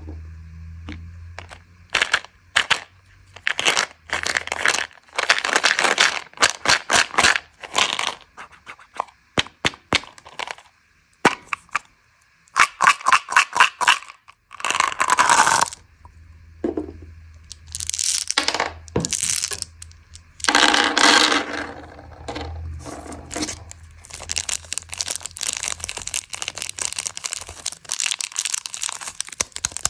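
Close-up handling of candy packaging: a string of sharp clicks and crackles from a plastic Mentos gum bottle being opened and its gum pellets tipped out, with bursts of crinkling plastic wrapper. Near the end, a Daim bar's plastic wrapper crinkles under the fingers.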